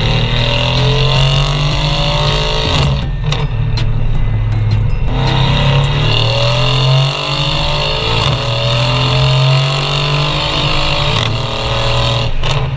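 Mercedes-AMG E63 S twin-turbo V8 under hard acceleration through the exhaust, revs rising again and again with short breaks at each upshift, the first about three seconds in.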